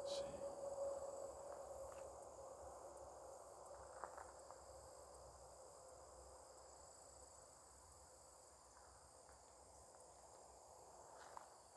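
Faint, steady insect chorus of high, unbroken trilling. A lower steady tone fades out over the first few seconds.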